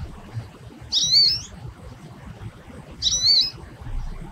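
American goldfinch giving its plaintive, cry-like call twice, about two seconds apart. Each call is a short whistled note that rises and then falls.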